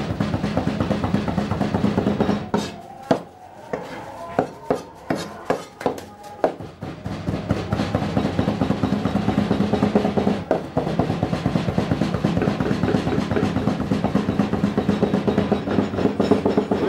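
Raw meat and herbs being chopped and pounded with a blade on a walnut-wood block for kafta nayyeh, in rapid even strokes like a drum roll, thinning to separate strikes for a few seconds about two and a half seconds in.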